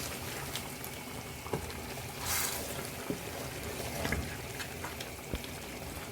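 A pot of egusi soup simmering and being stirred: a steady wet bubbling and sloshing, with a few short light knocks.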